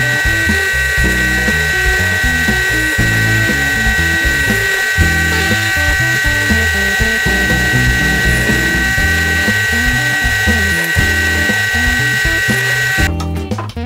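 Bench drill press running with a steady high whine while boring dowel holes in pine, over background music. The whine stops abruptly near the end, leaving only the music.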